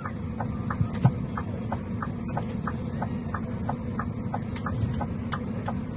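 Low steady rumble of an idling vehicle, with a regular light clicking about three times a second.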